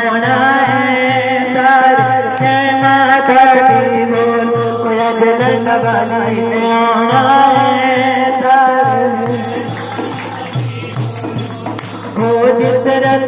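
Hindu devotional bhajan music: an instrumental passage of sustained melody over a steady beat of about two a second. It grows quieter around ten seconds in and comes back up near the end.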